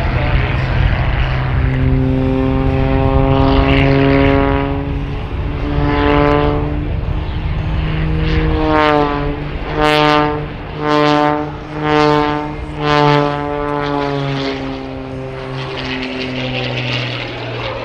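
Wolf Pitts Pro aerobatic biplane's piston engine and propeller running under power, the pitch shifting up and down as it manoeuvres. In the middle the sound swells and fades about once a second, four times.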